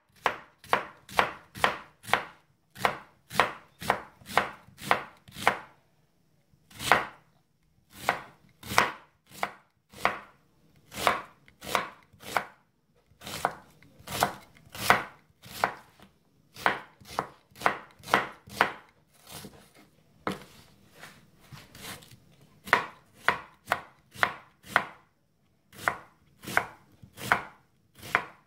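Large kitchen knife slicing a white onion on a wooden cutting board: a steady run of short, sharp knocks as the blade cuts through and strikes the board, about two a second, with a few brief pauses and a softer stretch about two-thirds of the way through.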